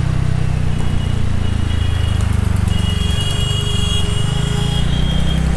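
TVS Ntorq 125 scooter's single-cylinder engine running under way, heard as a steady low rumble mixed with wind on the handlebar-mounted microphone. A thin high whine comes and goes in the middle.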